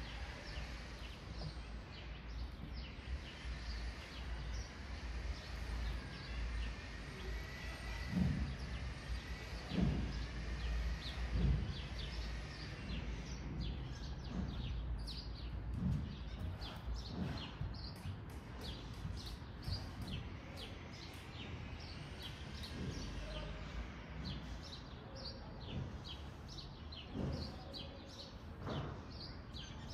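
Outdoor ambience of wind rumbling on the microphone in gusts, strongest about a third of the way in, with birds chirping repeatedly over it.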